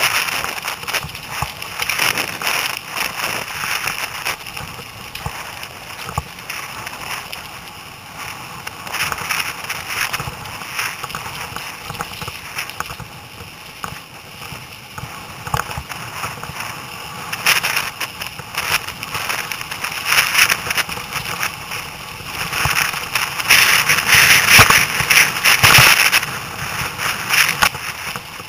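Mountain bike riding over a rough gravel and dirt trail: tyres crunching on loose stones, with a dense crackle of clicks and rattles from the bike jolting over bumps. It swells in stretches and is loudest near the end.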